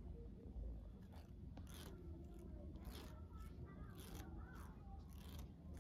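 Faint snapping and rasping of a twisted cotton thread plucking upper-lip hairs during threading, in short sharp strokes about once a second.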